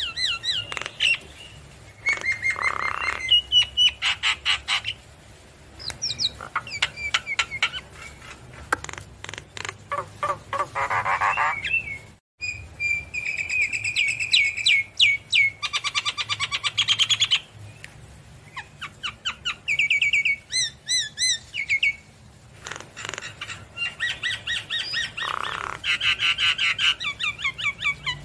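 Javan myna singing a varied song of whistles, harsh chatters and fast trills, in phrases with short pauses between them.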